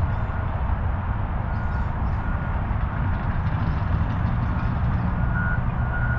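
Steady wind rumbling on the microphone. From about a second and a half in, a vehicle's reversing alarm beeps faintly and repeatedly.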